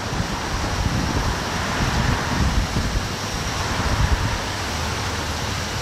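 Wind buffeting the microphone in uneven low gusts, over a steady outdoor hiss.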